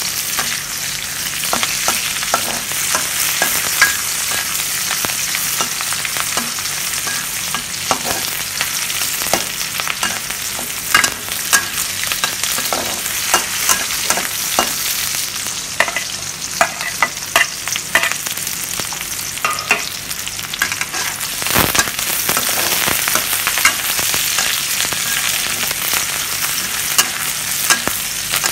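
Sliced red onions frying in oil in a wok, a steady sizzle, with a metal spatula scraping and clicking against the pan many times as they are stirred.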